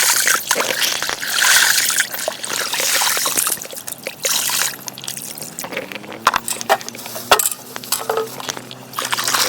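Water splashing and trickling as vegetables are washed by hand in running water, with a few sharp clicks. About halfway through, steady background music comes in underneath.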